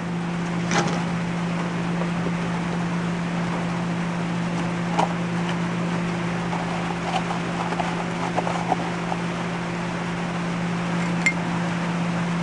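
A steady low machine hum, with a few light clinks and scrapes of a metal spoon against the cup and pan, most of them bunched together a little past the middle.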